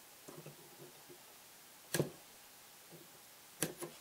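Plastic model-kit sprues handled on a workbench: faint light clatter in the first second, one sharp click about halfway through, and two more quick clicks near the end.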